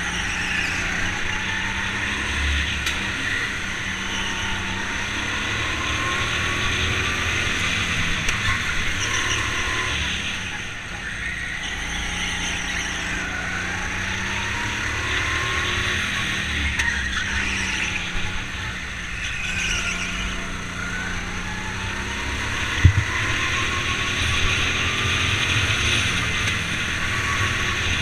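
Go-kart running flat out on a track, heard from on board: the pitch of its motor rises along the straights and drops into the corners, again and again. A single sharp knock about 23 seconds in.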